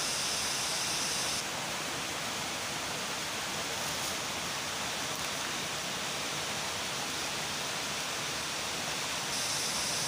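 Steady rushing noise with no distinct events, like running water; a higher hiss on top fades out about a second and a half in and comes back near the end.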